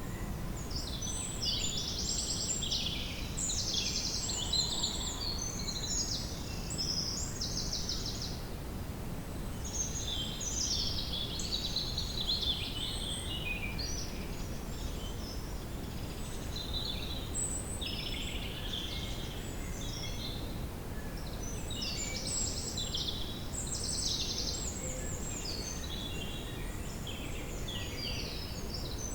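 Woodland ambience: several songbirds singing and chirping over one another, with rapid trills, over a steady low background rush.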